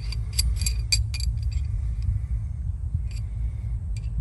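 Chrome deep socket and extension from a 3/8-drive set clinking together as they are handled and fitted, several light metal clinks in the first second or so and two more later, over a steady low rumble.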